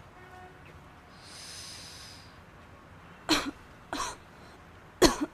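A person takes a hissing breath, then coughs three times over the last two seconds, the last cough the loudest.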